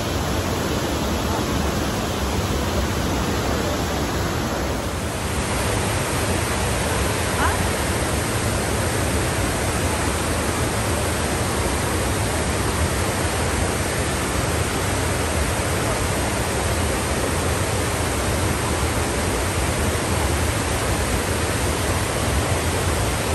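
Waterfall in heavy flow spilling down a broad rock face: a steady, loud rush of water.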